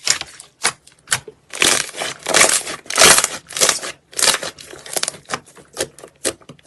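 Close-miked crunching and crackling in a rapid, irregular series of short bursts, loudest around three seconds in.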